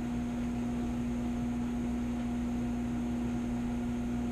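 Smeg speed oven running in combined microwave and grill mode at 600 watts: a steady low hum over the whoosh of its fan.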